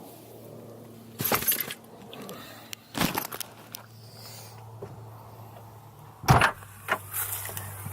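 A few sudden knocks and rattles, the loudest about six seconds in, over a steady low hum.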